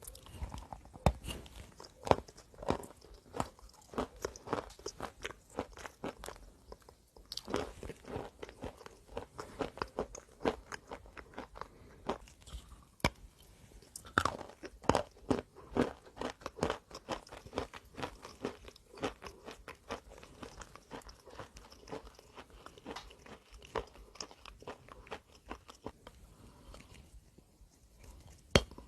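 A person biting and chewing crunchy chalk, with rapid, sharp crunches several times a second and brief lulls between bites.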